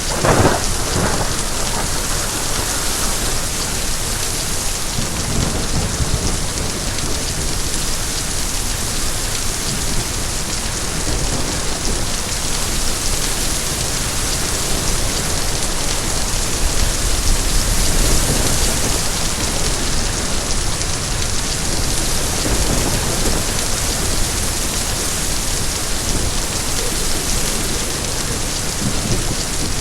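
Steady rain falling, with a sudden crack of thunder right at the start and low rolls of thunder swelling a few times afterwards.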